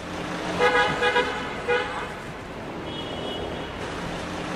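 Car engine running with a low, steady rumble, and a car horn tooting about four short times in the first two seconds.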